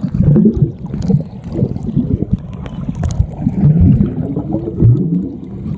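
Pool water heard through a submerged camera microphone: muffled gurgling and sloshing, dull and low in pitch, swelling and fading unevenly.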